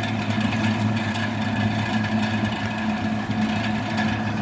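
Vintage Eskimo 12-inch box fan running steadily: a constant electric motor hum under the rush of air from its blades. The owner says the motor definitely needs oiling.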